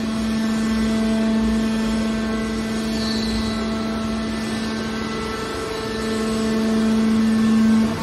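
Hydraulic metal baler's pump and electric motor running under load with a steady hum as the compressed bale of aluminium scrap is pushed out, swelling louder near the end.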